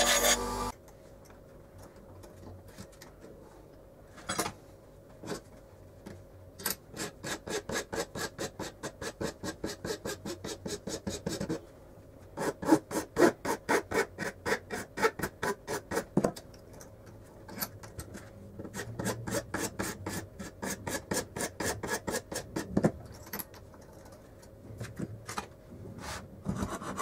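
Round hand file rasping back and forth on a small wooden piece clamped in a bench vise, in runs of quick even strokes about three a second with short pauses between runs. A loud steady sound cuts off in the first second.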